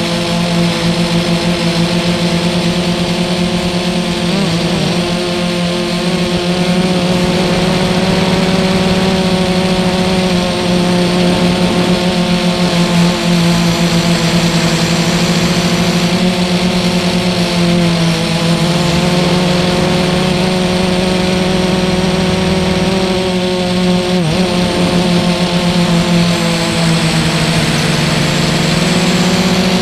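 Armattan FPV quadcopter's electric motors and propellers whining steadily in flight, the pitch wavering a little and dipping briefly a few times.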